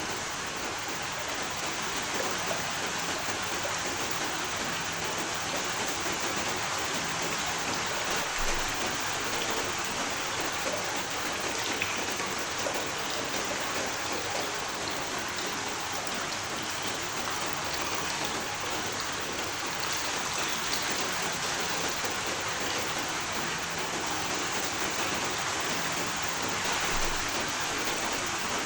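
Steady rain falling, an even hiss with scattered drops striking a surface.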